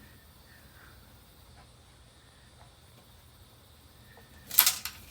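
Quiet room tone, then near the end a few short, loud scratchy strokes from a pencil marking the centre point on the wall.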